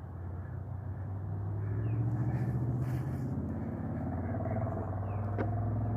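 A motor vehicle's engine running with a steady low hum that slowly grows louder.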